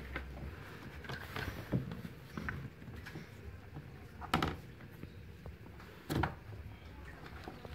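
Plastic clicks and knocks as a car's tail-lamp housing is handled and worked loose and its wiring connector pulled, with two sharper knocks about four and six seconds in.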